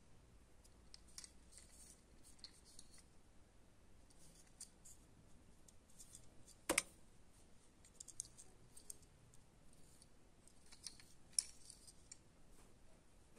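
Faint handling noise of a small die-cast toy helicopter turned over in the fingers: scattered light clicks and scratches, with one sharper click about halfway through and another near the end.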